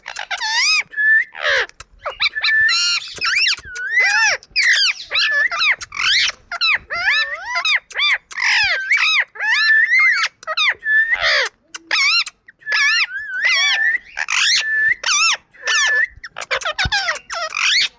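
Indian ringneck parrot chattering almost nonstop in short, quickly gliding squeaky calls, with a flat whistled note that recurs again and again.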